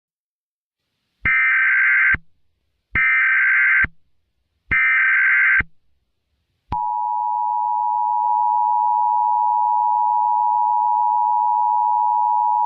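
Emergency Alert System SAME header: three short bursts of digital data tones, each about a second long and a second apart. About seven seconds in, the steady two-tone EAS attention signal starts and holds.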